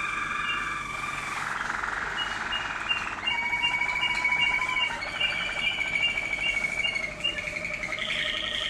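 Malinois Waterslager song canaries singing, more than one at a time: long held whistled notes, a fast trilling stretch in the first few seconds, and quick runs of repeated short notes.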